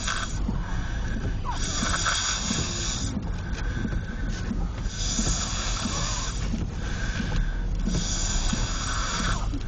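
A sleeper snoring: three slow, raspy breaths about three seconds apart, each with a hissing rasp, over a steady low rumble.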